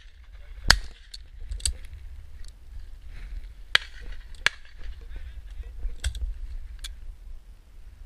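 A close shotgun shot from a Miroku MK70 over-and-under about a second in, followed by several quieter, scattered sharp cracks and clicks over a low wind rumble.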